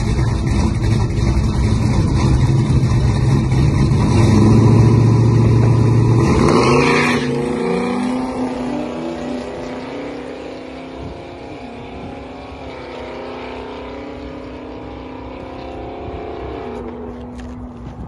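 A 1974 Dodge Dart Sport's 360 V8 held at high revs on the starting line, then launching down a drag strip. The engine pitch climbs, drops back as the automatic transmission shifts itself, and climbs again, fading as the car pulls away. A second car launches in the next lane at the same time.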